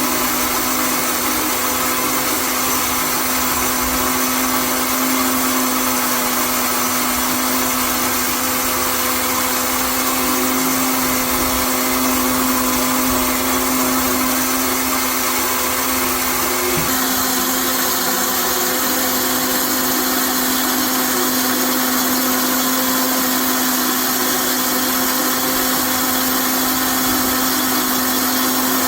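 A motor-driven machine whirring loudly and steadily with a constant hum, its tone shifting slightly about seventeen seconds in.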